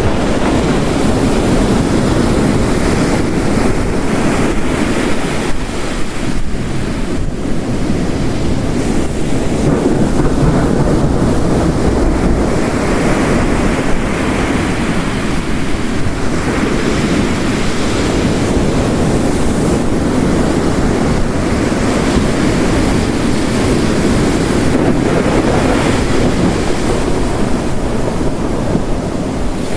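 Mixed storm ambience: heavy rain hissing over ocean waves crashing on a rocky coast, the surf rising and falling in slow swells every few seconds.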